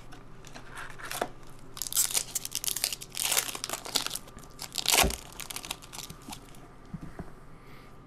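A 1998 Topps Stars football pack wrapper being torn open and crinkled, a run of crackling tears and crumples that is loudest from about two to five seconds in, then tapers off to a few light rustles.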